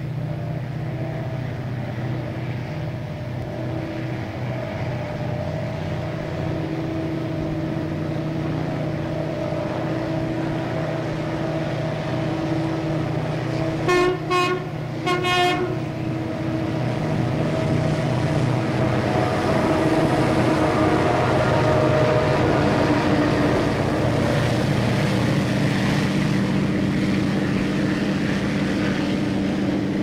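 Grand Trunk Western EMD SD40 diesel locomotives, with turbocharged 16-cylinder 645 engines, running with a steady drone. The horn gives two short blasts about fourteen seconds in, and after that the train gets louder and rougher as it comes closer.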